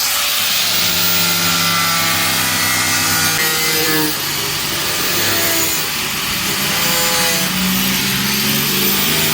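A handheld power tool running continuously against the refrigerator's rusted sheet-metal body, with a high thin whine above a loud steady rasp.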